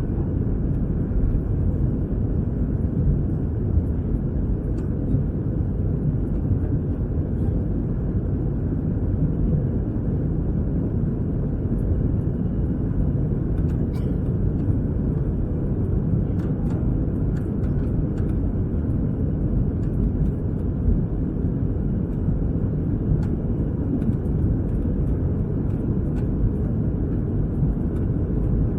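Steady low rumble of an Airbus A321-200 jet heard from inside the passenger cabin: engine and airflow noise at an even level, with a few faint ticks of cabin rattles.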